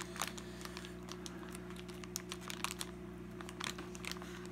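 Thin plastic bag crinkling and crackling in the hands as it is unwrapped: scattered small, irregular crackles over a steady low hum.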